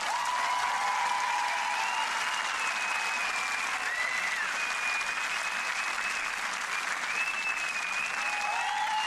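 Studio audience applauding, a dense steady clapping with a few long high tones drawn out over it.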